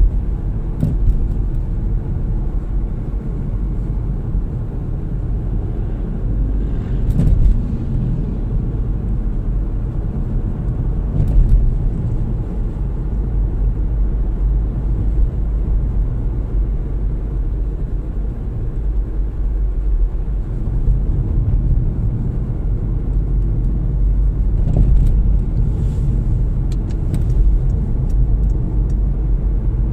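Car driving along, heard from inside the cabin: a steady low rumble of tyres and engine, with a few faint clicks.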